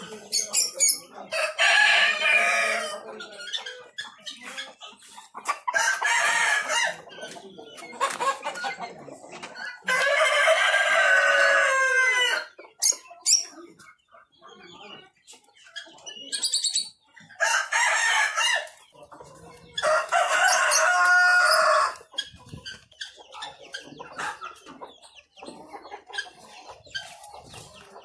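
Roosters crowing in turn, about five long crows, one of the longest in the middle trailing off at its end, with chickens clucking between the crows.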